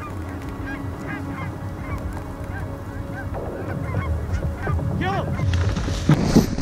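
Canada geese honking: many short honks overlapping, growing louder towards the end, with a brief rush of noise near the end.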